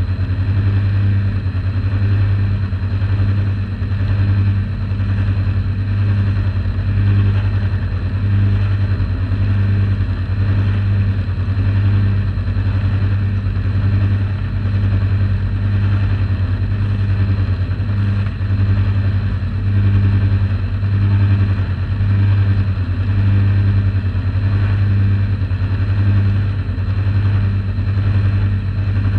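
Model boat's motor and drive running steadily, a strong low hum picked up through the hull by the deck-mounted camera. It swells and fades about once a second, with a hiss of water over it.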